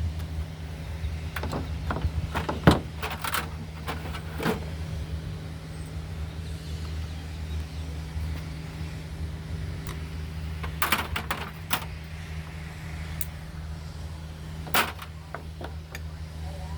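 Scattered clicks and knocks of tools and small chainsaw parts being handled, the sharpest about three seconds in and another cluster near the middle, over a steady low hum.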